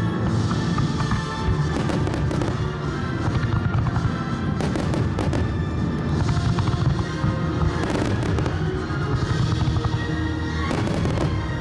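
Starmine fireworks barrage: clusters of aerial shells bursting every couple of seconds over continuous music.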